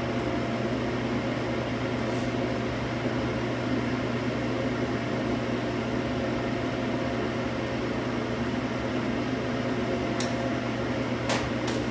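Steady low hum of kitchen ventilation, a fan running at an even pitch, with a few light clicks near the end.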